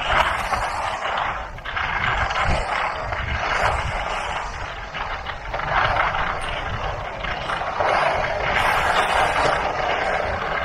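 Skis scraping and hissing over packed snow on a downhill run, swelling and easing in surges every couple of seconds as the skier turns.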